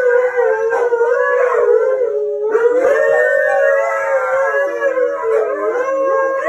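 Several dogs howling together, their long, wavering howls overlapping at different pitches, with a brief break about two and a half seconds in before the chorus starts up again.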